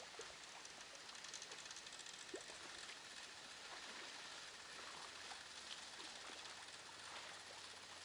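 Faint, steady outdoor hiss with scattered small ticks. A faint low hum joins in for the last few seconds.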